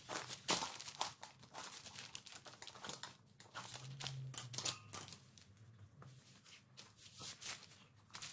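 A tyre lever prying a minivelo bicycle's tight front tyre off its rim: irregular scraping, rubbing and clicking of the rubber tyre against the wheel rim and lever, with a couple of sharper snaps in the first second.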